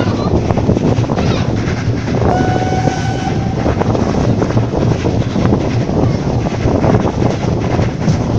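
Heritage train running at speed, heard from an open carriage window: a steady rush of wind and wheel-on-rail rumble. About two seconds in, one train whistle blast sounds for about a second and a half.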